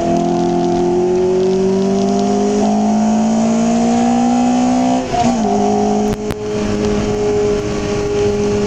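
Lotus Elise engine heard from inside the cabin, pulling under throttle with its pitch climbing slowly. About five seconds in the sound dips briefly and the pitch drops, as at a gear change, and it then runs at a fairly steady pitch.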